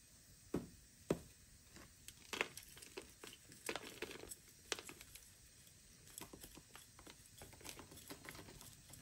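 Metal root pick scratching and picking through a ficus root ball, loosening old bonsai soil: faint, irregular crackles, scrapes and small clicks.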